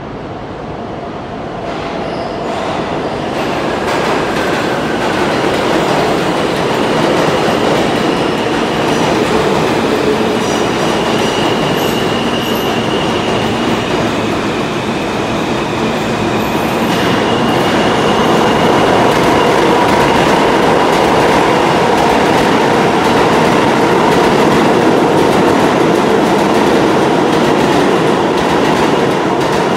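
New York City subway trains passing through an underground station: a sustained rumble and clatter of steel wheels on the rails, building in loudness over the first several seconds, with a faint high whine at times.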